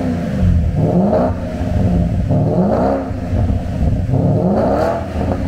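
Porsche Panamera S exhaust, the engine revved three times while the car stands still, each rev climbing and then falling back.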